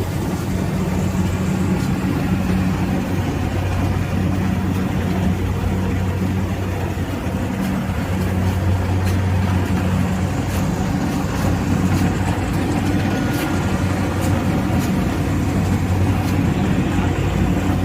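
Kubota tracked combine harvester's diesel engine running steadily at a constant speed, a low, even hum.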